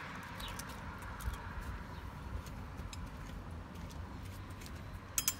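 Scattered light clicks and taps of metal parts as a scooter's rear variator assembly is greased and handled by hand, with a sharp cluster of clicks about five seconds in, over a low background rumble.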